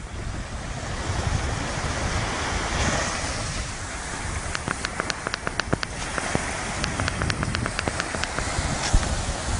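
Sea surf washing with a steady rush, wind on the microphone, and a run of quick sharp clicks about halfway through.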